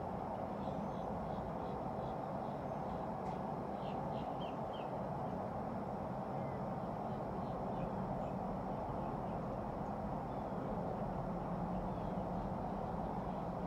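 Steady outdoor background noise, with faint, high bird chirps in the first few seconds.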